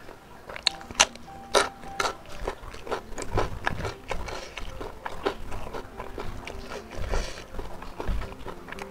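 Close-miked crunching and chewing of a raw winged bean, with sharp crunches, most of them in the first couple of seconds, then softer wet chewing with small clicks.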